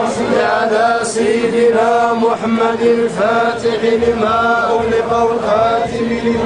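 A crowd of men chanting a religious refrain together, the sung phrases rising and falling about once a second over a steady held drone note.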